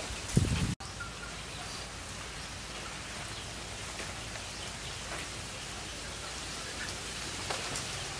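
Cleaver cutting the eyes and rind off a peeled pineapple: a few faint sharp cuts over a steady background hiss. Near the start there is a brief louder knock, then the sound drops out for an instant.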